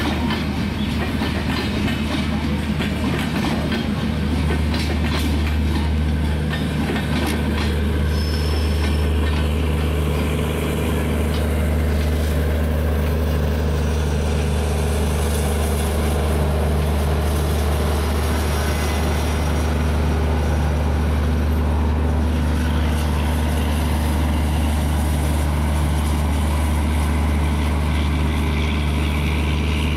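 Bangladesh Railway intercity passenger train rolling slowly past, with a steady low drone and scattered clicks of wheels over rail joints.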